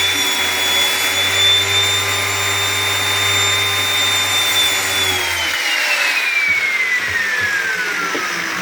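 Circular saw with a 60-tooth thin-kerf trim blade running at full speed on another dado kerf pass, a steady high whine. About five seconds in it is switched off, and the whine falls steadily as the blade spins down.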